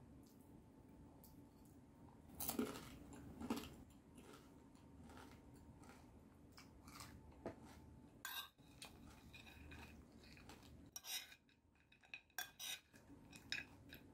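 Metal spoon clinking and scraping against a plate while scooping food, in scattered knocks. The loudest two come about two and a half and three and a half seconds in, with more toward the end.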